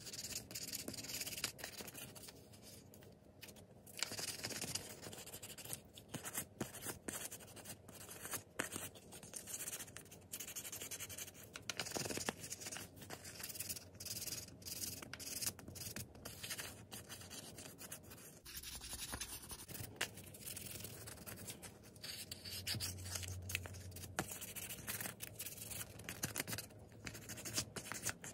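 A small toy car wheel wet-sanded by hand with a folded sheet of wet-and-dry sandpaper: quiet, irregular scratchy rubbing strokes.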